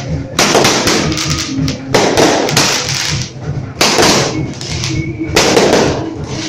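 Fireworks going off: about five loud bursts, each lasting a fraction of a second, coming roughly one to two seconds apart.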